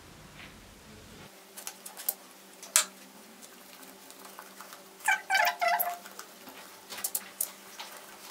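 A domestic cat meows once, a short call of under a second about five seconds in. Before it, a few sharp taps, and two more near the end.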